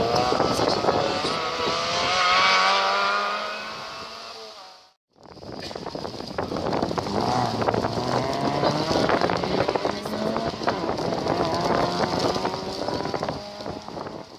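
Rally car engines accelerating hard: the revs climb, drop at each gear change and climb again as each car pulls away. The sound breaks off abruptly about five seconds in, and a second car is then heard accelerating the same way, fading with distance near the end.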